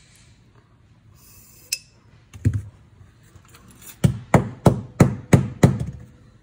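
Hard parts being knocked on a workbench: a single click and a thud, then six sharp knocks in quick succession, about three a second.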